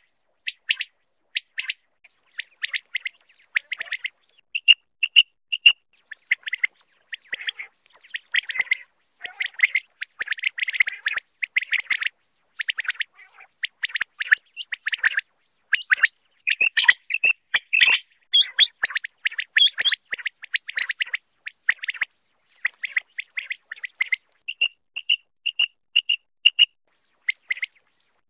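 Common quail calling: short, sharp chirping notes, some in quick dense clusters and some in a run of evenly spaced notes near the end.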